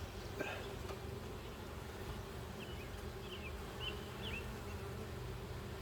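Honey bees buzzing steadily around an opened hive, a continuous hum, with a few short faint high chirps in the middle.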